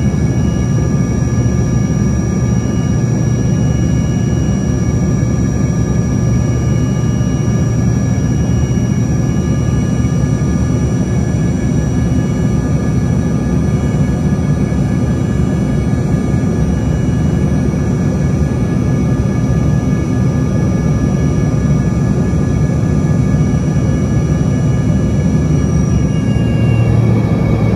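Embraer E135's Rolls-Royce AE 3007 turbofan running during the climb, heard from inside the cabin beside the rear-mounted engine. It is a steady, loud roar with several steady whining tones above it. The highest whine fades out shortly before the end.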